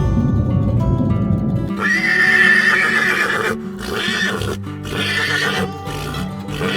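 An animal calling over background music: one long, high call about two seconds in, then two or three shorter calls. A low rumble comes before the first call.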